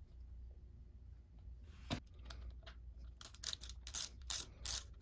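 A sharp metal click a little before two seconds in, then from about three seconds a ratchet wrench clicking in short repeated strokes as it runs a bolt into the oil pump.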